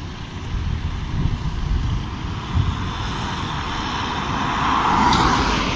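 Road traffic going past, with a low uneven rumble throughout. A car passing close swells up from about three seconds in, is loudest about five seconds in, then fades.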